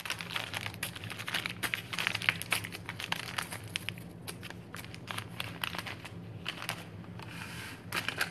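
Paper oatmeal packets crinkling and rustling as they are handled, a run of small crackles and clicks, over a low steady hum.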